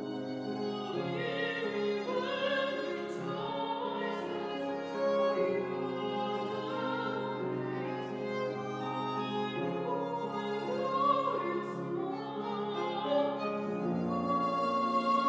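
Classical soprano singing with violin and grand piano accompaniment, in long held notes with vibrato.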